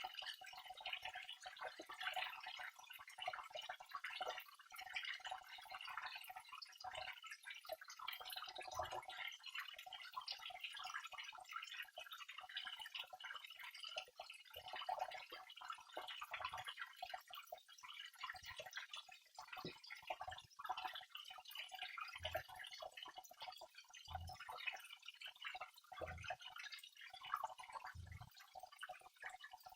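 Small waterfall: water trickling and splashing in a continuous patter of drips, with a few soft low plops now and then.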